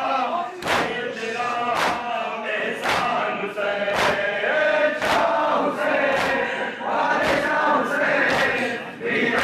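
A large group of men chanting in unison, punctuated by massed chest-beating (matam): many hands striking chests together, a sharp slap about once a second in time with the chant.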